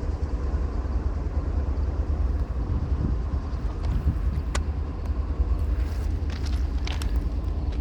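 Amtrak Pacific Surfliner passenger train, led by a Siemens Charger diesel locomotive, running by at speed with a steady heavy rumble and a few brief sharp ticks in the second half. No horn is sounded.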